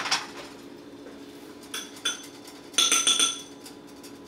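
A frying pan set down on an electric stove coil with a short clatter, then kitchen clinks of utensils against dishes: two light clinks just before two seconds in and a louder, ringing clink about three seconds in. A steady low hum runs underneath.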